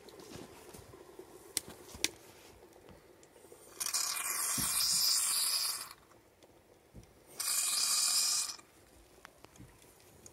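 Two loud bursts of hissing steam from a homemade steam bicycle's boiler, the first about two seconds long and the second about one second, with a pause between. Faint crackling and two sharp clicks come before them.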